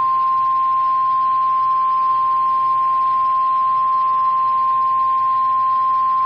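NOAA Weather Radio 1050 Hz warning alarm tone: one steady, unbroken high beep over faint radio hiss, the alert signal sent ahead of a warning message.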